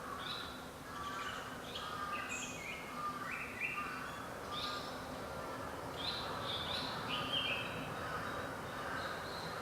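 Wild birdsong: short whistled and chirping notes repeating in phrases throughout, some stepping down in pitch, over steady outdoor background noise.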